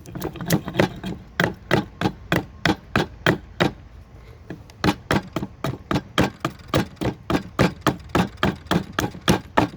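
Hatchet chopping into a cedar block, roughing out a carved duck: quick, evenly spaced strikes, about three a second, with a brief pause a little before halfway.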